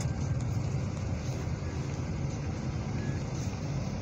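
Steady low road and engine noise of a moving vehicle, heard from inside its cabin.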